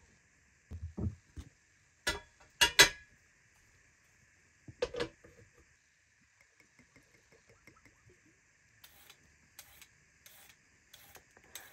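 A metal cooking pot clanks and clatters as it is set down on a wick stove, with a few sharp knocks. Near the end, a hand grater scrapes carrots in quick, evenly spaced strokes, about three every two seconds.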